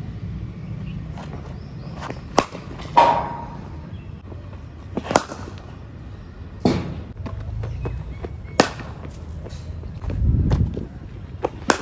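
A cricket bat striking a hard leather cricket ball: several sharp, separate knocks a second or two apart. The loudest comes about three seconds in with a short ring. A low rumble comes near the end.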